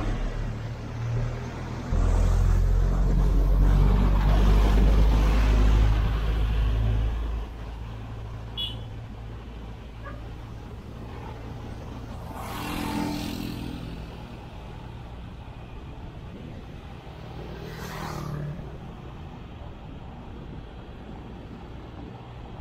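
Road traffic heard from a helmet camera on a moving e-bike. A heavy low rumble runs for about five seconds near the start, and vehicles swell and fade past twice later on.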